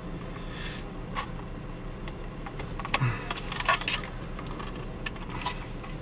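Scattered light clicks and taps of metal tweezers on a tight plastic wiring clip and the plastic dashboard vent housing, as the clip's ends are squeezed to release it. The clicks bunch together a little past the middle, with one more near the end.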